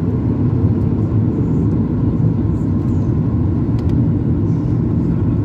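Cabin noise inside a Boeing 737 MAX 8 in flight: a steady low rumble of engines and airflow, heard from a window seat.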